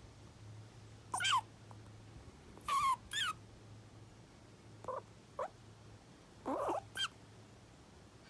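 Gray squirrel making a series of short, high squeaks, some sliding down in pitch and some in quick pairs, through a pecan held in her mouth. They are her gentle food-guarding warning, telling a person not to take her nut.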